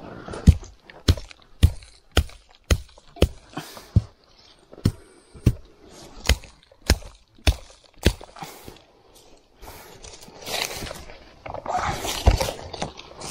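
About fourteen sharp chopping or hammering strikes, roughly two a second, stopping about eight seconds in, followed by a stretch of rustling noise.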